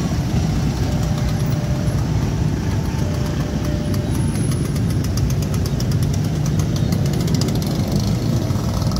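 Steady low rumble of idling motor vehicle engines, with a quick run of faint, fast clicks in the middle.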